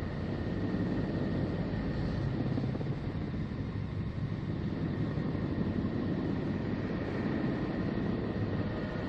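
Voyager 'sound of Neptune' space recording: a steady low rumbling drone with a faint, steady high tone running above it.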